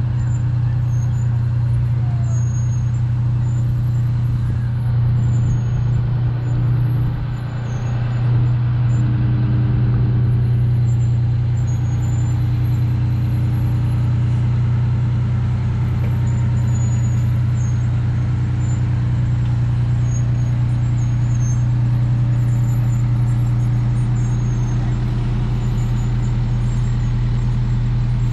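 Fire engines' diesel engines running as they crawl past at low speed, a steady low drone that dips briefly about a third of the way in.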